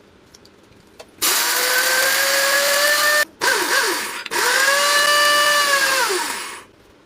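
Silver Crest 2-in-1 blender grinder's electric motor running at high speed with a steady whine. It switches on about a second in, cuts out abruptly two seconds later, gives a short uneven spurt, runs again, and winds down with a falling whine near the end.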